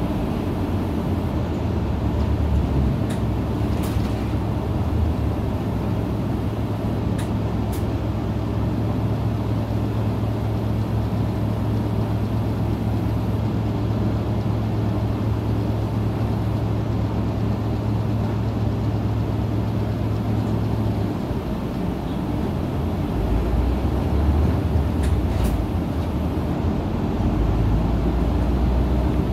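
Isuzu KL-LV280N1 city bus under way, heard from inside the cabin: a steady diesel engine drone with road rumble. The low engine note changes a little over two-thirds of the way through, with a few light rattles.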